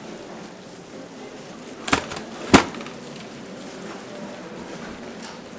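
Two sharp clacks from a lever-operated gimbap cutting machine, about half a second apart and the second louder, as its blade press comes down, over the steady background noise of a busy market.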